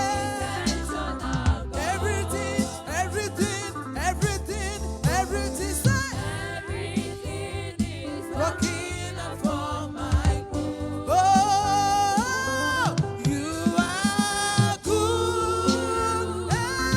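Gospel worship song: singing voices with held and sliding notes over instrumental backing with a steady beat.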